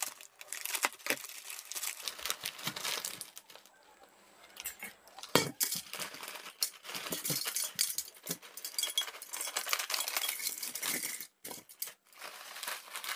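Plastic bag crinkling and rustling as dry rice noodles are handled and pulled out into a steel bowl, with many small crackles and clicks. A sharp metallic clank about five seconds in, as the steel bowl is set down or struck.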